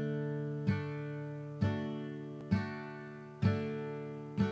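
Music: a guitar strumming a chord about once a second, the intro of a country-style song before the singing starts.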